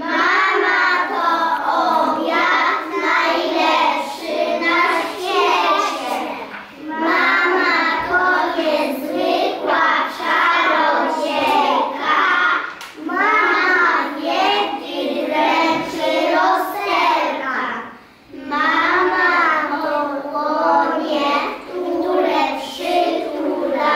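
A group of young children performing a Polish rhyme together in chorus, their voices in unison in a sing-song delivery. There are short breaks between verses, about a quarter of the way in and again about three-quarters of the way through.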